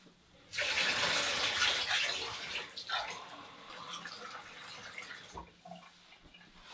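Kitchen tap running water into a glass. It starts about half a second in, is loud for a couple of seconds, then runs softer and stops with a light knock near the end.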